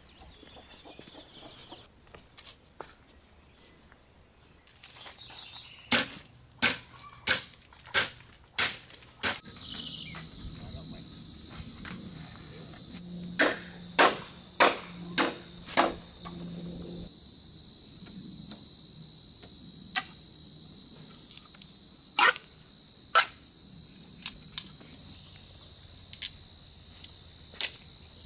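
Sharp cracks of a knife blade striking green bamboo as it is cut and split: a run of about six strokes a little over half a second apart, then another run of five after a pause, then a few single strikes. From about a third of the way in, a steady high insect buzz goes on underneath.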